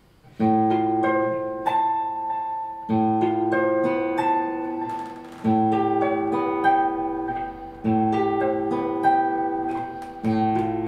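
Nylon-string acoustic-electric guitar in its plain, unprocessed sound, playing a passage of picked chords. A new chord is struck about every two and a half seconds, and its notes ring on between strikes.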